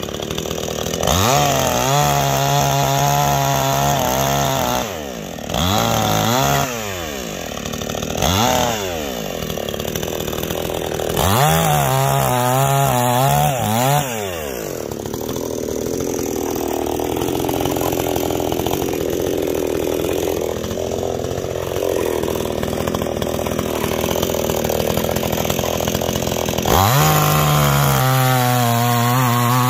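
Neo-tec NCS5800 58cc two-stroke chainsaw revved up and down in several short bursts, then held at speed and run into wood for about twelve seconds, its pitch dropping and roughening under load, before revving freely at high speed again near the end.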